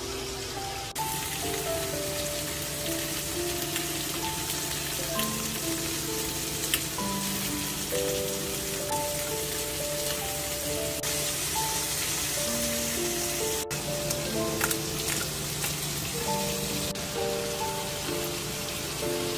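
Oil sizzling steadily as flour-coated pieces of semi-dried pollack fry in a pan, under background music with a gentle melody of held notes.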